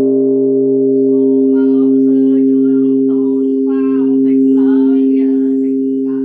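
Vietnamese pagoda bell ringing on after a single strike, a steady low hum of several tones that barely fades, with a voice chanting over it from about a second in.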